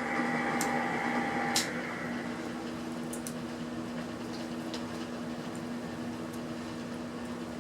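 A steady low electrical hum, with a higher tone that cuts off about a second and a half in, and a few light clicks.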